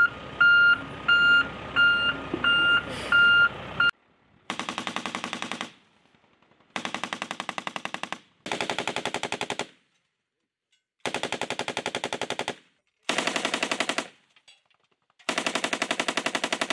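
A belt-fed machine gun on a vehicle turret firing six short bursts of rapid automatic fire, each about a second long. Before it, for about the first four seconds, a steady electronic beeping of a vehicle's reversing alarm, roughly two beeps a second.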